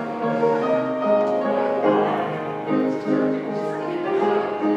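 Instrumental music led by piano, with sustained notes and chords changing every second or so.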